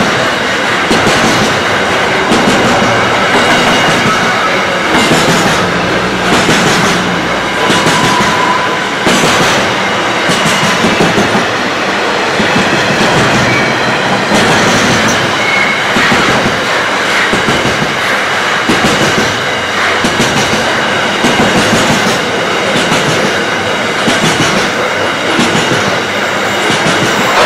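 Loaded container wagons of a freight train rolling past, their steel wheels clattering over the rail joints, with a couple of short high wheel squeals.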